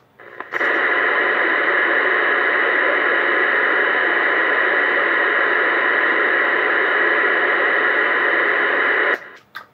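Steady hiss of static from a Uniden Bearcat 980SSB CB radio's speaker on channel 19 AM. It starts abruptly about half a second in and cuts off just before the end, as a carrier keyed up and dropped.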